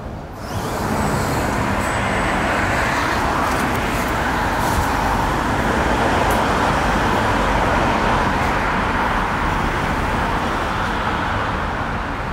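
Busy road traffic going past: a loud, steady rush of vehicle noise that swells about a second in and eases slightly near the end.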